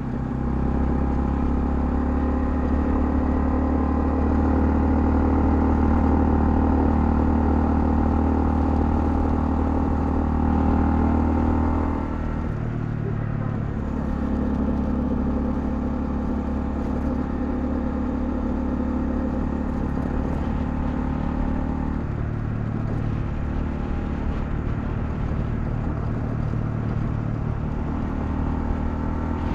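Honda CL250 motorcycle engine running under way. Its note drops and changes about twelve seconds in and shifts again around twenty-two seconds in.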